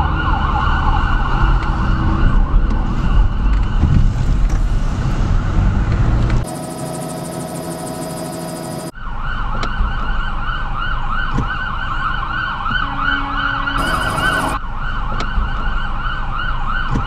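Police siren warbling quickly up and down over a low rumble. About a third of the way in it gives way for a couple of seconds to a different steady sound, then comes back.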